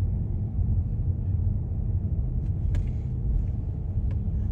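Steady low rumble of a car driving, heard from inside the cabin, with a couple of faint clicks.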